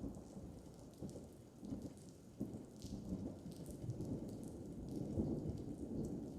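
Thunder rumbling low, swelling and fading in rolling waves, with rain falling and scattered drops tapping close by.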